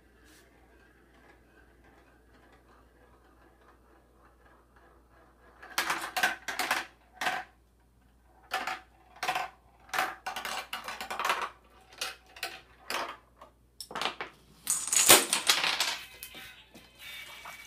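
Homemade Rube Goldberg machine running: after several quiet seconds, a string of sharp clacks and clatters of small hard pieces hitting and tumbling, the loudest clatter about fifteen seconds in.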